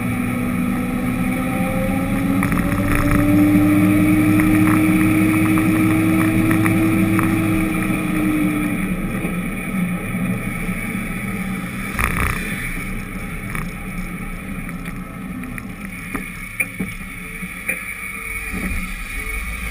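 A vehicle's engine running while driving along a street, its note rising slowly for about eight seconds and then dropping back, over steady tyre and road noise. A few sharp knocks come in the second half.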